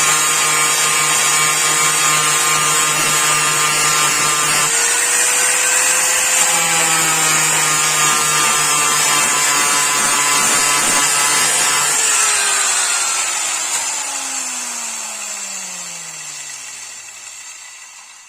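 Electric power tool motor running steadily with a high grinding hiss, then switched off about twelve seconds in and winding down, its pitch falling until it coasts to a stop.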